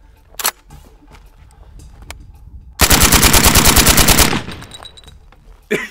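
True Velocity RM277 bullpup rifle, suppressed, firing 6.8×51mm polymer-cased rounds in one rapid full-auto burst lasting about a second and a half, starting about three seconds in.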